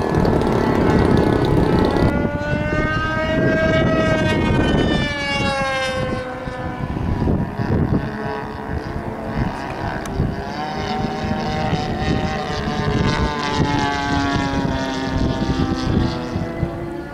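Radio-controlled Super Sport 40S model airplane's engine running in flight, its pitch rising and falling as the plane passes and changes throttle. Heavy wind buffets the microphone throughout.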